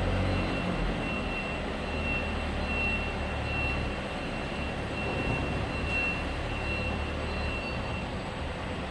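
X6332WA universal milling machine running with its table power feed driving two axes together: a steady low hum under a thin high whine, and the whine stops near the end.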